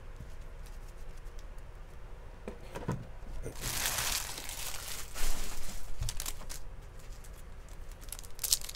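Foil trading-card pack wrappers crinkling and rustling as they are handled. A louder stretch of crackling runs from about three and a half to six seconds, with a few sharp crackles near the end.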